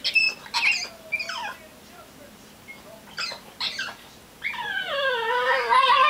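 French bulldog whining and crying to be let out of her crate: a few short squeaky cries, then from a little past halfway a long wavering whine.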